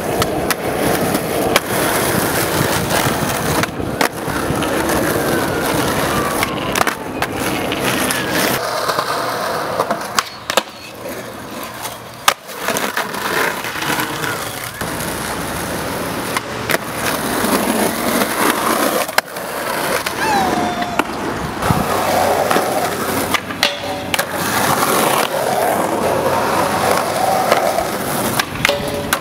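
Skateboard wheels rolling over rough pavement, broken by repeated sharp clacks and slaps of the board hitting the ground and curbs.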